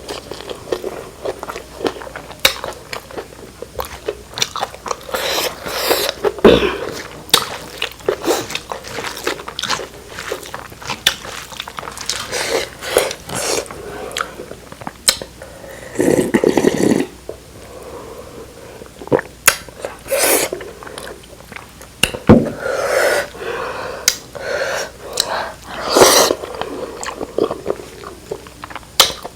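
Close-miked chewing and biting of food, with many irregular wet smacks and clicks and some crunching. About halfway through comes one longer, louder mouth sound.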